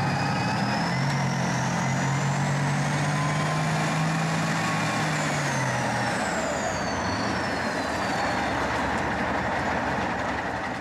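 Heavy tank engines running hard in mud, a steady low drone under a high whine that climbs for about four seconds and then falls away.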